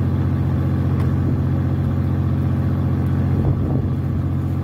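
Fishing boat's diesel engine running with a steady, low hum.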